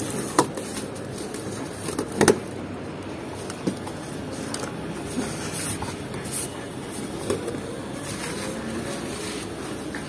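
Bubble wrap rustling and a cardboard box being handled as glass vacuum tubes for a solar water heater are unpacked, with a few sharp clicks and knocks, the loudest about two seconds in, over steady background noise.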